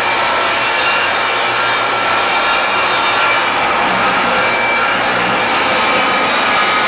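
Benchtop table saw running at full speed and ripping a 2x4 lengthwise into a 2x2: a loud, steady mix of motor whine and the blade cutting through the wood.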